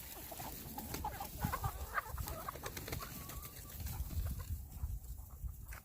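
Backyard chickens clucking, with a few short calls in the first half, over a low rumble; a sharp click near the end.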